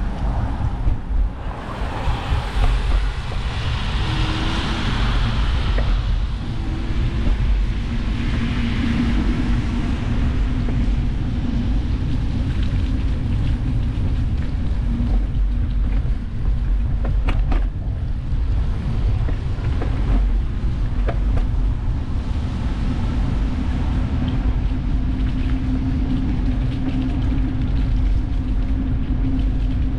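Wind buffeting the microphone of an action camera on a moving bicycle, with a steady low rumble from the ride.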